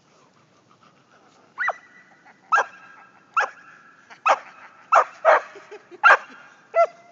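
A small dog barking excitedly while it plays in deep snow: about eight sharp barks in a row, starting a second and a half in, roughly one every three-quarters of a second.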